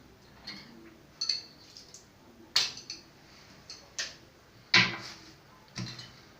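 Metal clinks and knocks, about six separate strikes a second or so apart, as a washing-machine tap is worked loose from its threaded fitting by hand and tool.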